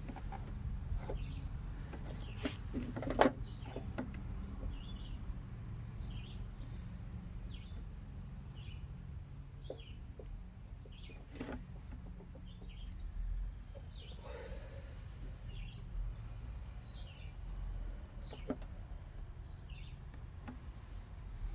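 A few sharp metal clicks and taps from hand-tool work on a lawn mower, the loudest about three seconds in, over a low steady hum. Throughout, a bird chirps in short calls about once a second.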